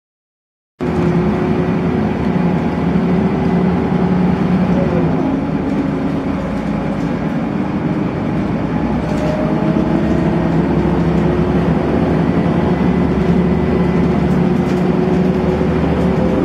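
Volvo B7RLE single-deck bus with a ZF automatic gearbox, heard from inside the passenger saloon, its engine and drivetrain running. The sound starts abruptly just under a second in. A steady whining tone drops in pitch about five seconds in, then climbs slowly.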